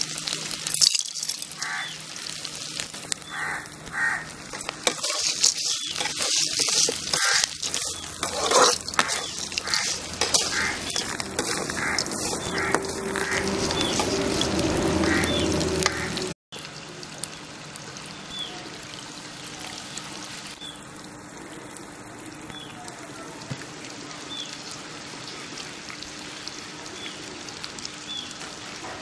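Chutney ingredients sautéing in a pan and being stirred, a sizzle mixed with scraping and knocks against the pan. About halfway through the sound breaks off abruptly and goes on as a quieter, steady hiss with faint ticks about once a second.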